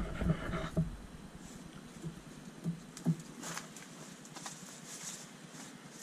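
A cat moving about right at the microphone, brushing against the camera: soft thumps and rustles in the first second, then fainter scattered taps and rustles.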